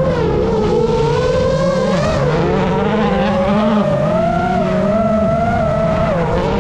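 Citroën C3 WRC rally car running at speed, its turbocharged four-cylinder engine mixed with tyre noise on loose ground. Over it, the whine of an FPV drone's motors, rising and falling in pitch as the drone chases the car, dipping briefly near the end.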